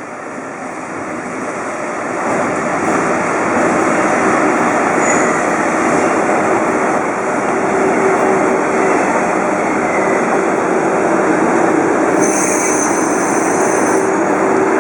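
A train's running noise: a steady rushing rumble that builds over the first few seconds and then holds, with a faint steady hum running through it.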